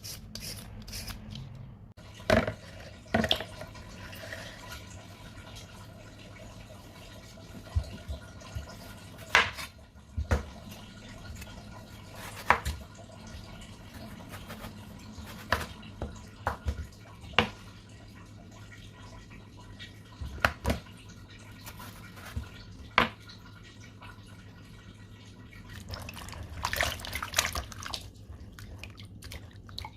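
Kitchen prep sounds: scattered knocks and clinks, with dripping and splashing water, over a steady low hum.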